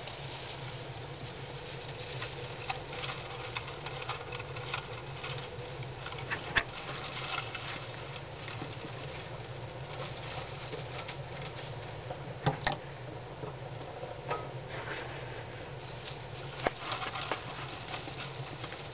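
Hamsters scurrying and rustling about in cage bedding, with scattered sharp clicks and scratches, over a steady low hum.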